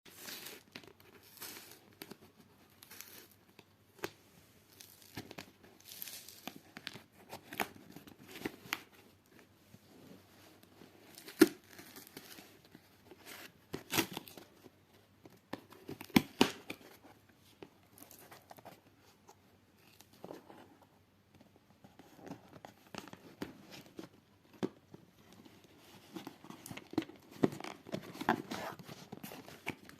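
Packaging being opened and handled by hand: irregular tearing, crinkling and rustling with scattered clicks, and a few sharper snaps, the loudest about eleven seconds in and again around sixteen seconds.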